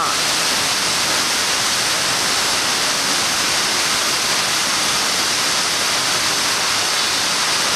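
Wulai Waterfall's falling water, a steady, even rush of white noise with no letup.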